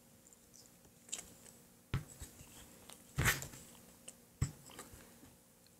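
Cutting pliers crunching into a hollow fishing weight, a few separate squeezes with the loudest about three seconds in, scoring it partway round rather than cutting straight through so its line hole is not blocked.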